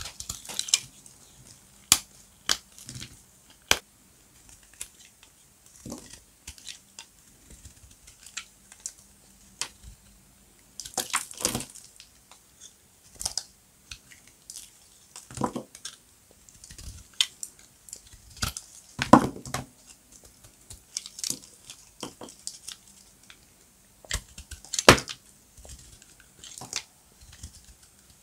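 Dry glam soap crunching and crackling as it is broken up, in irregular short crunches and sharp crackles with pauses between. Several crunches are louder, the loudest near the end.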